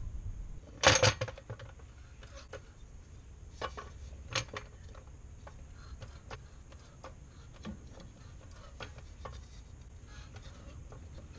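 A loud, sharp clatter about a second in, then scattered light clinks and knocks as a wooden block is set on a floor jack under the engine.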